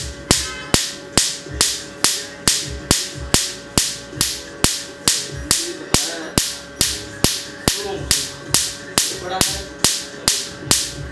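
Tattoo-removal laser firing a steady train of pulses, a little over two sharp snaps a second, as the handpiece works across a small inked tattoo on the forearm. A faint steady hum runs underneath.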